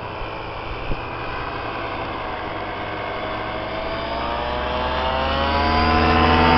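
Engine and propeller of a powered paraglider quad flying in low, droning steadily and growing louder over the last few seconds as it approaches, its pitch rising slightly.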